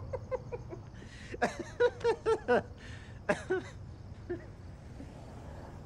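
A person laughing: runs of short, falling 'ha' syllables with breathy in-breaths between them. The loudest run comes about two seconds in, and the laughter dies away by about four seconds.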